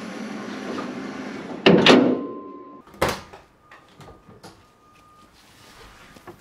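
Bonnet of a 1972 Ford XA Fairmont hardtop brought down and shut with one loud bang and a ringing decay, under two seconds in. About a second later comes a second, lighter knock, then a few faint clicks.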